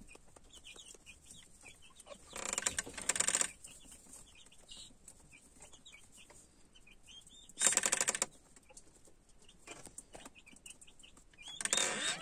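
Chicks peeping softly again and again in the background, broken by two short, loud rustling bursts about two and eight seconds in.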